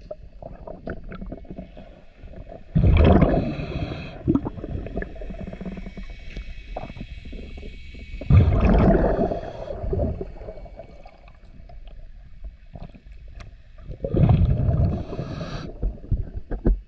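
A scuba diver breathing through a regulator underwater: three loud bursts of exhaled bubbles about every five and a half seconds, with quieter gurgling of water between breaths.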